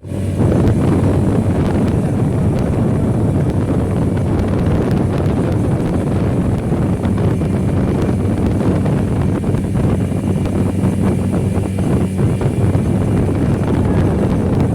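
Speedboat engine running with a steady drone, under heavy wind buffeting on the microphone.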